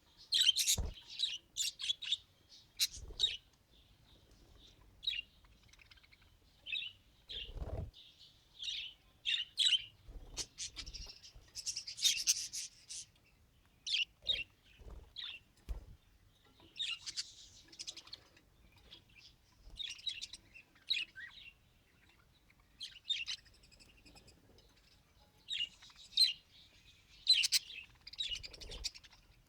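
Budgerigar chattering: irregular bursts of high chirps and warbling with short pauses between them, and a few soft knocks.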